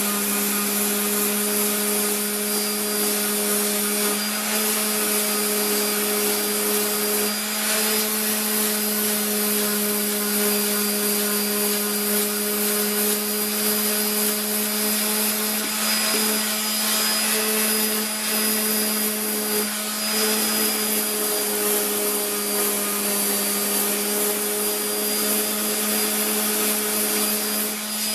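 A high-speed electric motor, a power tool or shop vacuum, runs steadily with an even hum and hiss, its pitch dipping slightly now and then.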